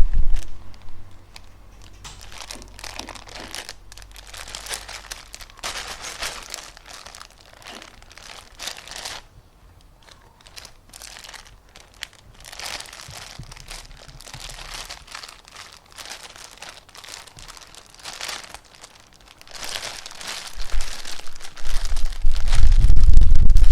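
Crinkling and crumpling in spells of a few seconds each, with short quieter pauses between. Near the end a loud low rumble comes in.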